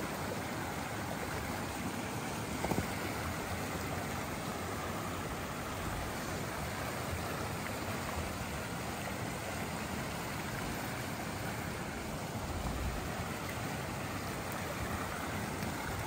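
Steady rushing of a running stream, with one light knock about three seconds in.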